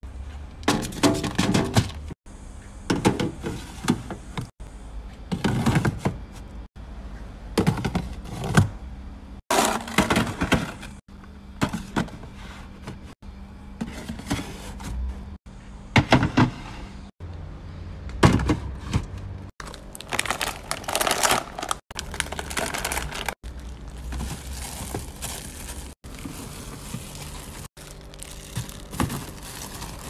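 Plastic food storage containers and bags being handled and set down on refrigerator shelves: knocks, thunks and crinkling, broken up by abrupt cuts every couple of seconds.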